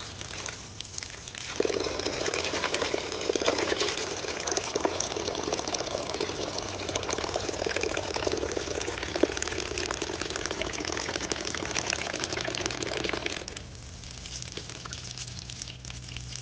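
Dense crackling and crinkling noise made of many small clicks. It starts about a second and a half in and fades near the end, leaving a faint low hum.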